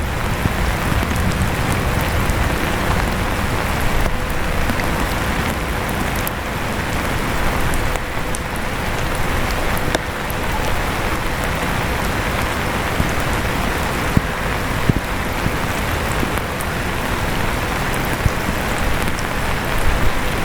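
Steady rain with scattered small drip ticks, together with an electric fan running with a faint steady hum.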